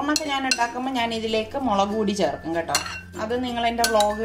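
Metal fork clinking and scraping against a glass mixing bowl while tossing sliced onion and beetroot salad, in many quick irregular taps.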